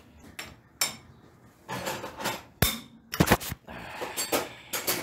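Metal tools and engine parts clinking and knocking against each other as they are handled, in a string of sharp strikes. The loudest is a ringing clank a little over halfway through, followed at once by a quick cluster of knocks.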